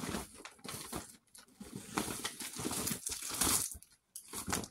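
Crinkling and rustling of a printed plastic reusable shopping bag as a hand rummages inside it, in irregular bursts with short pauses about a second in and about four seconds in.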